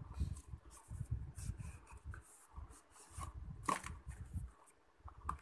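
Hands handling a cardboard phone box and its clear plastic wrap: irregular rustling and rubbing with short crinkles, one sharper crackle about two-thirds of the way through.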